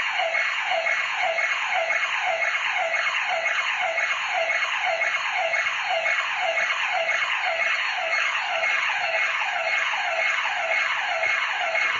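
Home burglar alarm siren going off, a rapid repeating falling sweep in pitch, about two sweeps a second, sounding without a break.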